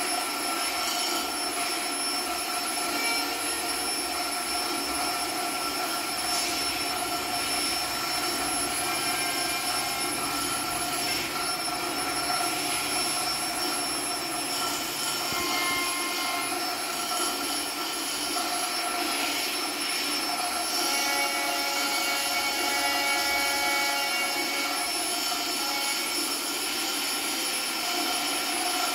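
Experimental electronic noise performance: a dense, steady hissing drone with several held high tones, and short pitched tones that come and go, more of them in the second half.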